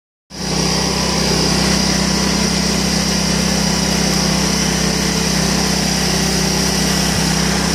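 Small engine pulling a homemade barrel train, running steadily at an even speed with a constant pitch.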